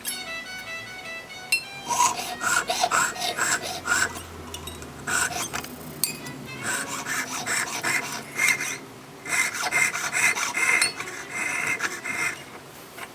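A hand tool working 18K gold, with repeated uneven rasping strokes of metal on metal. Background music underneath, heard clearly in the first second or so.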